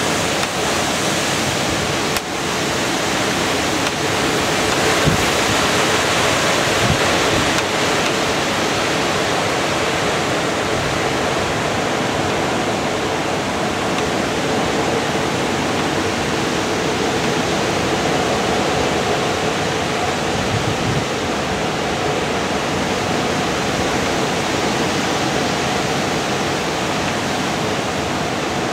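Strong storm wind blowing through the leaves of birch and other broadleaf trees, a steady rustling rush that swells a little a few seconds in, with a few faint low thumps.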